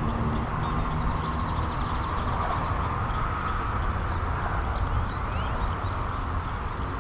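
Steady low outdoor rumble and hiss, with a few short high bird chirps about four to five seconds in.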